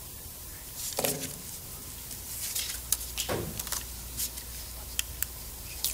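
Lecture-hall room tone during a pause in a talk: a steady low hum with a few faint clicks and soft rustles.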